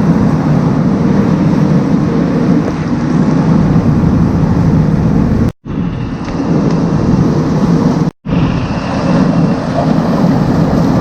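Silage feed machinery (silo unloader and belt feeder) running with a steady, loud rumble, which cuts out briefly twice.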